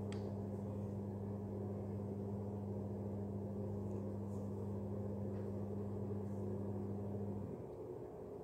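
A steady low hum, made of two steady tones an octave apart, that cuts off about seven and a half seconds in.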